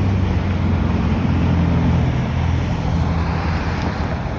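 Steady low drone of a motor vehicle's engine and road noise, with a hiss of noise over it.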